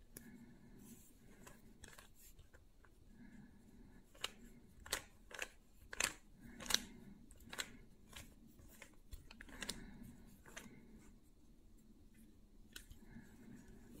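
A 3x3 Rubik's cube being turned by hand, its plastic layers clicking as they rotate. A quick run of louder clacks comes from about four to eight seconds in, and a few more follow near ten seconds.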